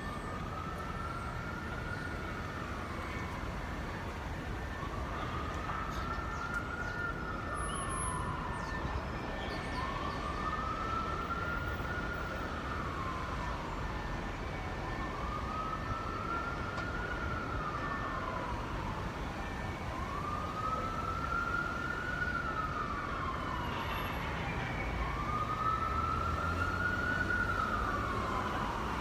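Emergency vehicle siren in a slow wail, rising and then falling in pitch about once every five seconds, over steady street traffic noise.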